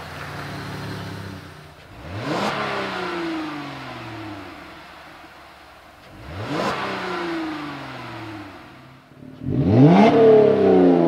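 2020 Jeep Gladiator's 3.6-litre Pentastar V6 at low revs, then blipped three times, each rev rising quickly and falling slowly back to idle through the exhaust. The first two revs are on the stock exhaust; the third, about ten seconds in, is much louder.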